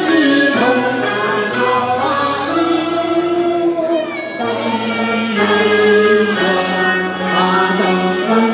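Amplified singing over a backing track played through a small portable speaker: amateur Chinese opera (xiqu) singing, a wavering sung line over a steady accompaniment.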